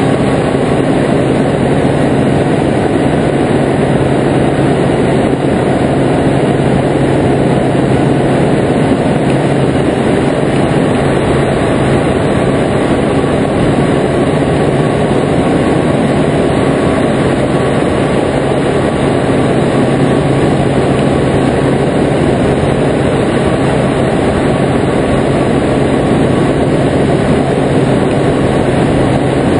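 Mosquito NRG harness motor's two-stroke engine and propeller running at a steady throttle in flight, a constant loud drone.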